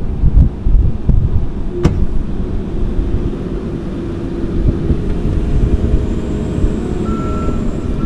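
Kioti skid steer's diesel engine running with a heavy low rumble. A single sharp click comes about two seconds in, and a steady high tone joins near the end.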